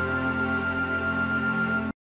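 Background music with sustained tones, cutting off abruptly just before the end.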